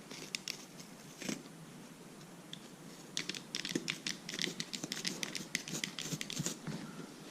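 A blade slicing into motorcycle seat foam padding: a run of short scratchy, crackling cuts, sparse at first and much denser from about three seconds in.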